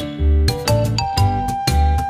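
Instrumental background music: bright pitched notes over a steady bass beat, about two beats a second.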